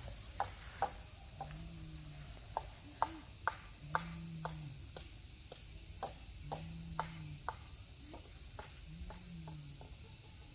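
Forest ambience: a steady, high insect drone, a low hoot that rises and falls and repeats about every two seconds, and a scatter of sharp taps that are the loudest sounds.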